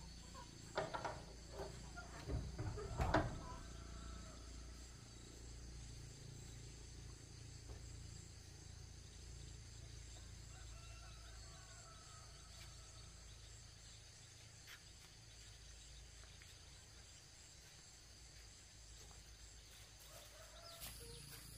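Faint outdoor ambience of insects trilling steadily, with a few knocks and a low thump in the first three seconds.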